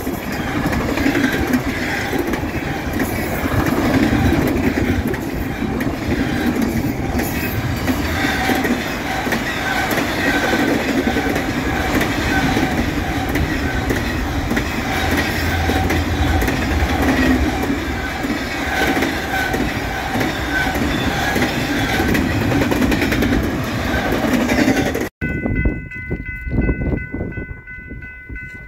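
Double-stack intermodal freight train rolling past at close range, a steady heavy rumble of wheels on the rails. About 25 seconds in, the sound cuts and a distant approaching locomotive sounds its horn, a held chord.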